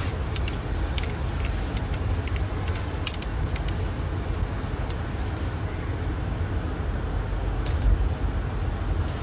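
Steady low rumbling background noise with a few faint clicks; no sneeze stands out.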